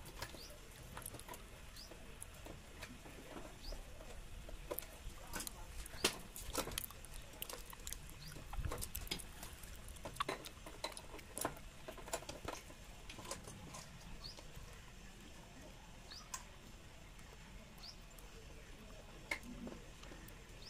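Scattered faint clicks and taps from hand work on wiring and an MCB changeover box, with a few short high chirps in between.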